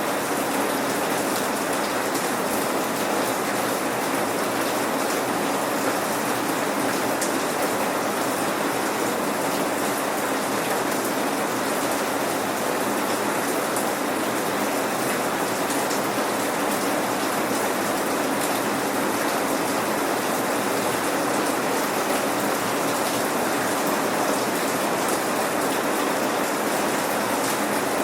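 Steady rain falling on a surface, an even hiss of dense rainfall with scattered individual drops, no thunder.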